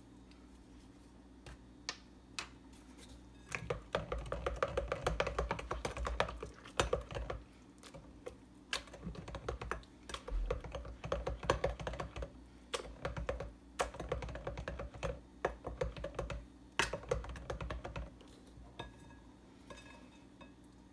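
Rapid clicking and tapping of a kitchen utensil against a mixing bowl as the mixture is stirred. It starts a few seconds in, runs dense, then thins out near the end.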